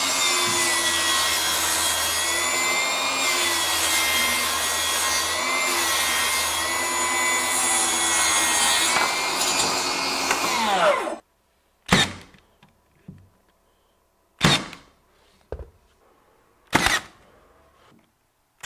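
Milwaukee M18 FUEL cordless table saw running and ripping a board, its motor whine dipping slightly in pitch under load and falling as it winds down before cutting off about eleven seconds in. Then a cordless 18-gauge brad nailer fires three sharp shots about two and a half seconds apart, with a few lighter knocks between.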